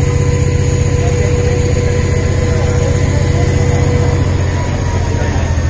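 Narrow-gauge diesel locomotive engine running with a steady low throb. A thin steady whine over it fades out about four and a half seconds in.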